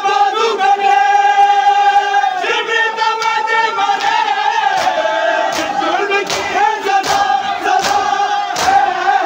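Crowd of mourners chanting a noha with long held notes. From about five seconds in, the slaps of matam, open hands striking bare chests in unison, join at a steady beat of a little under two a second.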